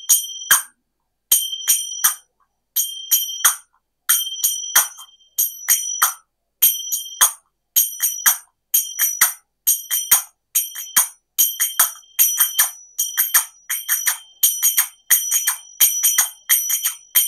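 A pair of kartals (small hand cymbals) played in a repeating three-stroke pattern with a pause after each group. Two strokes ring open and the third is a short, closed clap. The pattern starts slow and steadily speeds up until the strokes run almost without a break.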